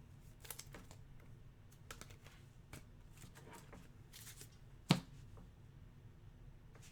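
Basketball trading cards being handled: soft slides and rustles of the cards against each other, with faint clicks and one sharp tap about five seconds in.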